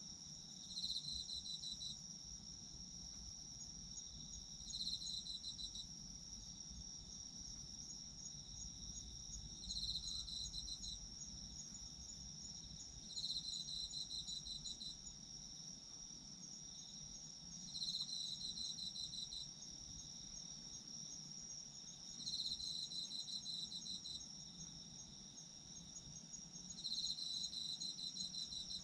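Chorus of autumn insects: a continuous high, fast trill underneath, and a louder pulsed chirping phrase of about a second that comes back roughly every four seconds, seven times.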